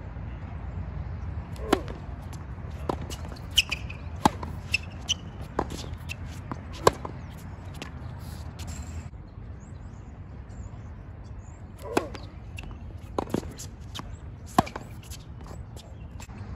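Tennis ball struck by racquets and bouncing on a hard court during a rally: sharp pops about once a second for the first several seconds, then, after a pause, more hits beginning with a serve about twelve seconds in. A steady low rumble sits underneath.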